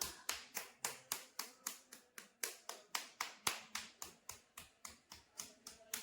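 Percussion hammering on a patient's body during manual therapy: sharp, even taps at about four a second.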